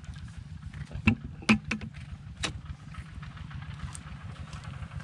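A hand tool knocks against hard, dry, cracked clay soil, giving about five sharp knocks in the first four seconds, two of them loud, over a steady low rumble.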